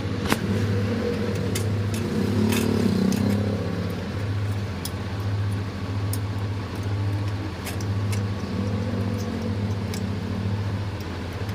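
A low machine hum that swells and fades roughly once a second, with scattered sharp clicks over it.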